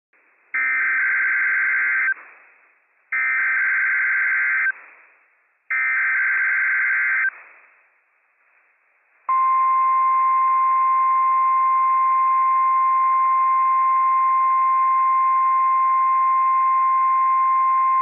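Three NOAA Weather Radio SAME header bursts, short raspy digital data tones about a second and a half each, two and a half seconds apart. About nine seconds in, the steady single-pitch 1050 Hz warning alarm tone starts. Together they open the Required Weekly Test of the alert system.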